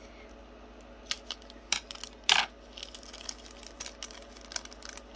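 Scissors snipping a small plastic bag open, then thin plastic packaging crinkling and tiny plastic toy pieces clicking as they are handled. The loudest sound is a short crackle about two and a half seconds in.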